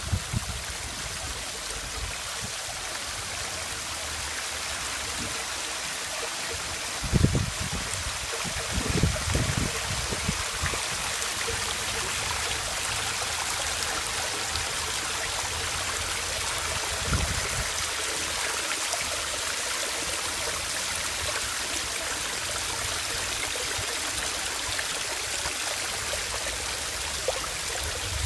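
Stone waterfall with water falling and splashing in a steady, even rush. A few short low thumps break through, the loudest about seven seconds in.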